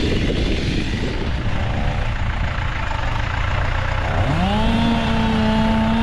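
Engine running under a dense rumble of noise; about four seconds in, an engine revs up quickly and holds a steady high pitch.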